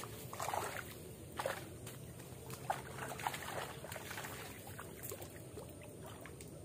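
Water near the bank: a few short, irregular splashes and sloshes, mostly in the first few seconds, over a faint steady outdoor background.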